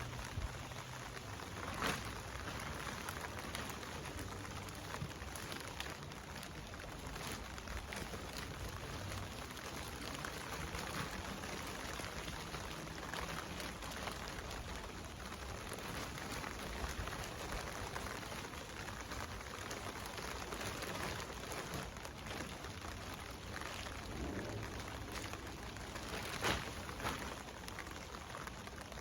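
Steady patter of rain falling on surfaces, with a few sharp knocks, one about two seconds in and two close together near the end.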